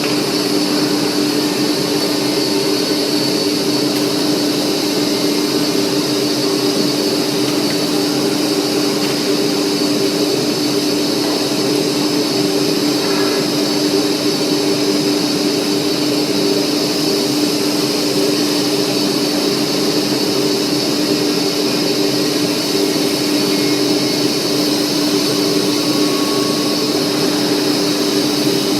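Horizontal panel saw for cutting MDF board running with a steady, unchanging machine whine.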